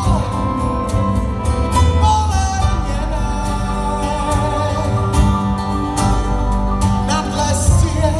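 Live band playing a song: a man singing into a microphone over acoustic guitar, electric guitar, cajon and keyboard.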